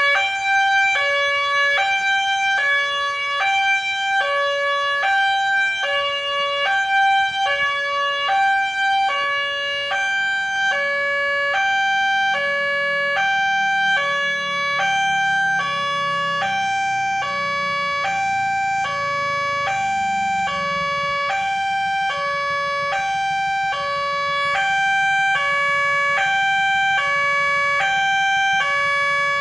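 Railway level-crossing warning siren, a harsh, hoarse electronic two-tone wail alternating steadily between a high and a low note about once a second. A low rumble swells underneath from about a third of the way in and holds to past the middle.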